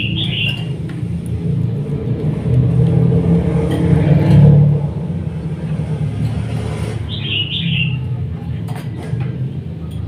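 Steady low rumble, louder about four seconds in, with two short high chirps, one near the start and one about seven seconds in.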